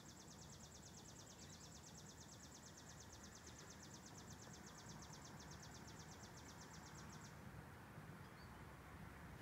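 Faint, rapid, high-pitched trill of an animal: evenly spaced pulses, about seven a second, that stop abruptly about seven seconds in, over a low steady background hum.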